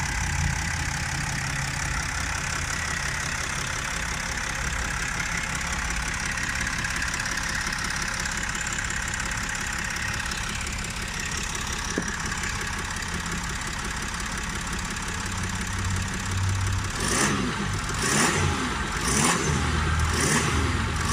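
Mercedes-Benz OM642 3.0-litre V6 turbodiesel with a single turbo, idling steadily. Near the end it gives four short surges about a second apart, like quick blips of the throttle.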